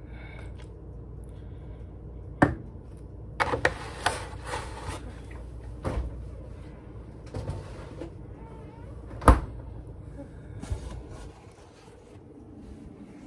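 A series of household knocks and clunks, such as a cupboard door shutting and things being set down, the loudest about nine seconds in, over a low steady hum.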